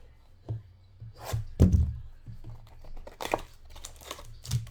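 A handful of sharp knocks and rustles from handling a trading card box and its wrapping on a table.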